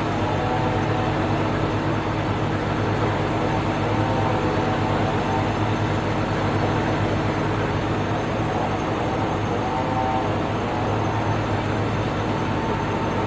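Sawmill band saw running steadily: a constant low machine hum, with a wavering higher whine that swells and fades every few seconds.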